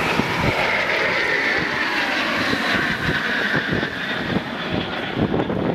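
A formation of four jet aircraft passing low overhead: a steady jet rush with a whine that sinks slightly in pitch and fades about halfway through. Wind buffets the microphone.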